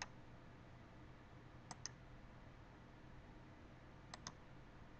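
Three quick pairs of computer mouse clicks, about two seconds apart, over faint room hiss.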